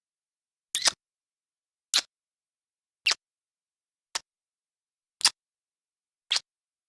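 Kissing sound effect: six short, sharp lip smacks about a second apart, with silence between them.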